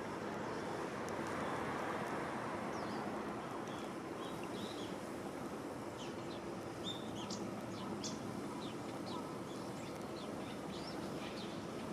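Small birds calling with many short, high chirps, scattered from a few seconds in, over a steady background rumble.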